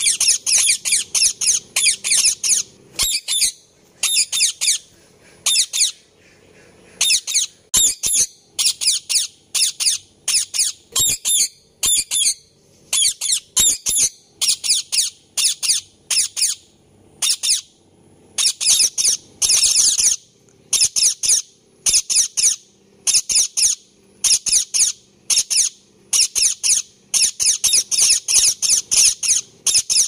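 Indian ringneck parakeet giving shrill, high-pitched chirping calls in quick runs of several notes, broken by short pauses.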